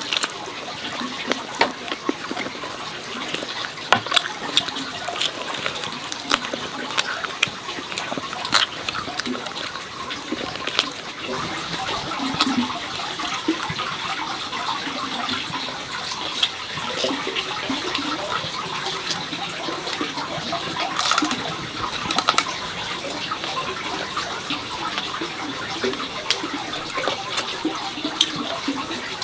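Running or splashing water, with sharp clicks and knocks scattered throughout.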